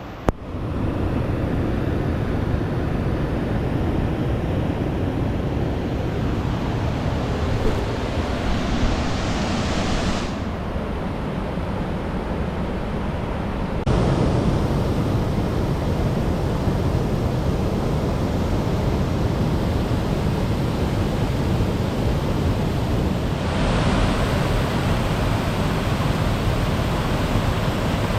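Mountain creek water rushing steadily. Its loudness and brightness shift abruptly a few times: down about ten seconds in, back up about four seconds later, and brighter again near the end.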